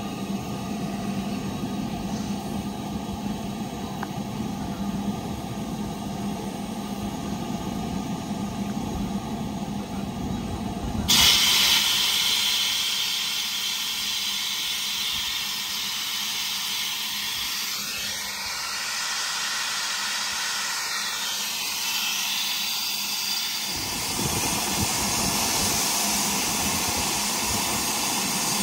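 A steady low rumble, then about eleven seconds in a sudden loud, steady hiss of steam from an LMS Black 5 steam locomotive.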